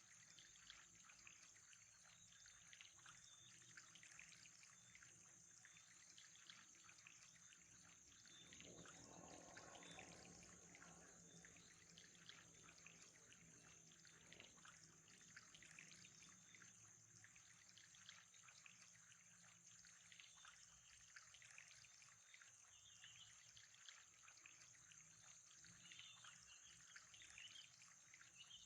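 Faint trickling water with a steady high-pitched whine and scattered small chirps. A short low swell of rushing water comes about eight to eleven seconds in.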